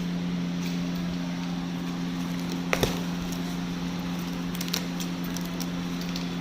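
A steady low hum, with one sharp knock a little under three seconds in and a few lighter clicks near five seconds, from the handling of a sealed paper packet as it is opened.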